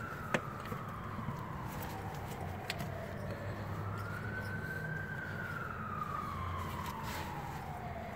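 A siren wailing in the background, its pitch rising and falling slowly, about one full cycle every five seconds. Beneath it runs a low steady hum, with a few light clicks.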